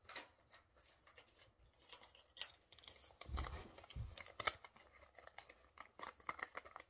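Paper rustling and crinkling as a sheet of paper is handled and folded, in irregular short crackles, with a couple of low thumps about three to four seconds in.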